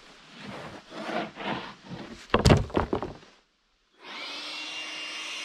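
Wooden knocks and rubbing from the sawn aspen being handled, loudest about two and a half seconds in. After a short break, a battery-powered leaf blower spins up with a rising whine and runs steadily, blowing sawdust off the milled board.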